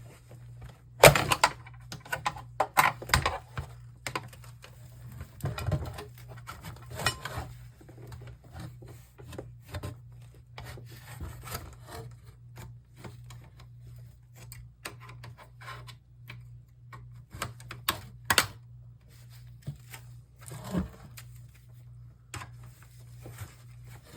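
Hand tools working on an old CRT computer monitor's plastic housing: irregular sharp clicks and knocks with scraping and rubbing in between, the loudest knock about a second in. A steady low hum runs underneath.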